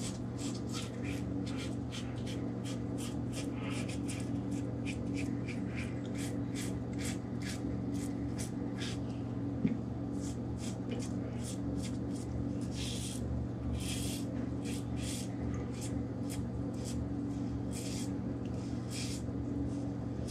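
Rockwell 6S safety razor with a Gillette Permasharp blade scraping through lathered stubble: a quick series of short, crisp scratching strokes, several a second, with a brief lull about halfway. A steady low hum runs underneath.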